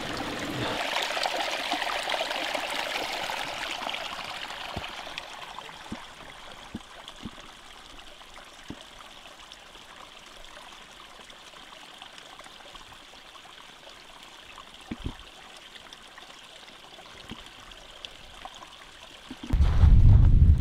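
Steady rush of running water, loudest in the first few seconds and then fading lower, with a few faint ticks. Near the end wind suddenly starts buffeting the microphone with a loud low rumble.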